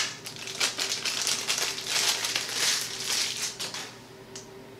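Clear plastic packaging crinkling and rustling as it is handled and unwrapped, a dense run of crackles that stops almost a second before the end, followed by a single small click.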